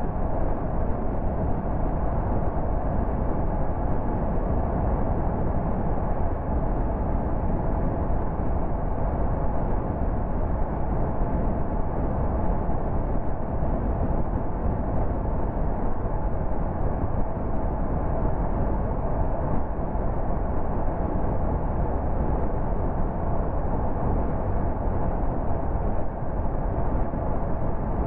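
Car cruising at motorway speed: a steady, even rumble of tyre and wind noise that does not change throughout.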